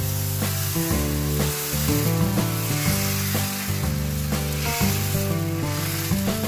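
Dosa batter sizzling on a hot nonstick pan as it is ladled on and spread in a spiral, with steady background guitar music underneath.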